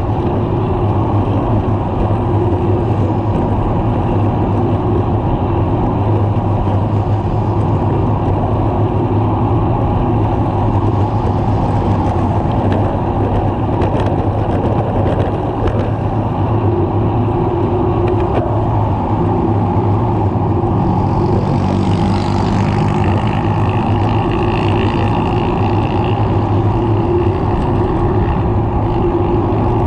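Steady wind rush buffeting the handlebar camera's microphone as a road bike rides along a highway, with motor traffic going by in the next lanes. About two-thirds of the way through, a passing vehicle adds a brief hiss and a higher steady whine.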